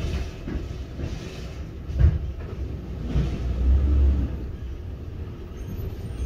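A low, uneven rumble, with louder swells about two seconds in and again around four seconds in.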